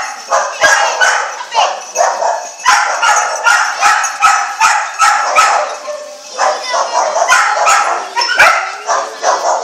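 Mudi herding dog barking over and over, about two sharp barks a second, with a brief lull about six seconds in.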